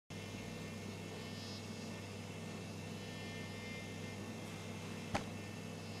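Quiet room tone: a steady low hum with faint high whines, and a single sharp click about five seconds in.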